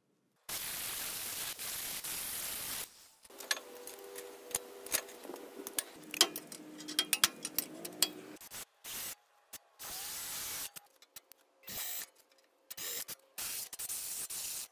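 A string of short metalworking sounds on a rusty steel truck frame: a steady hiss for about two seconds, then a power tool running with scraping and rapid clicks, then brief separate bursts. Near the end, an electric drill bores a hole through the frame.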